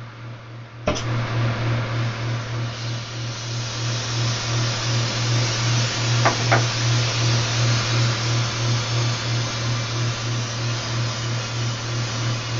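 A soldering torch lit with a sharp click about a second in, then its flame running with a steady loud hiss over a pulsing hum. Two short clicks come about six seconds in.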